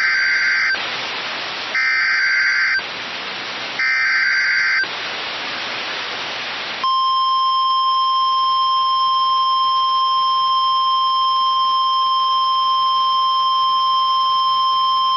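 Weather radio alert tones: three short bursts of screechy SAME digital header data, about a second each, separated by radio hiss. Then the steady, single-pitch warning alarm tone is held for about nine seconds. Together they are the standard signal that a new weather warning message follows.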